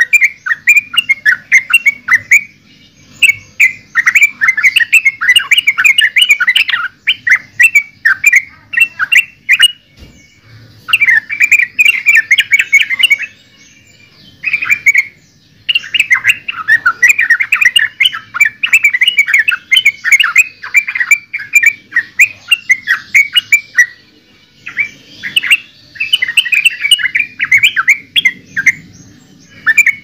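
Yellow-vented bulbul song: bubbly, chattering phrases in bouts of a few seconds, broken by short pauses.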